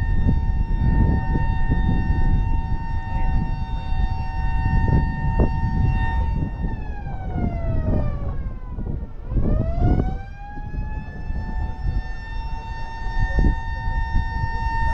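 Mechanical warning siren sounding a steady tone that sags in pitch about seven seconds in and climbs back up about three seconds later, over constant low rumbling noise.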